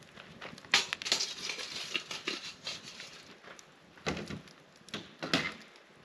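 A metal grill grate set down and shifted on the rocks of a stone campfire ring: sharp knocks and rustling scrapes, the loudest about a second in. Crunching steps on dry grass and pine needles follow in the second half.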